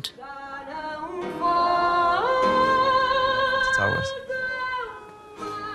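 A woman singing fado, traditional Portuguese song, holding long notes with vibrato. Her voice steps up in pitch about two seconds in, and the held note fades away near the end.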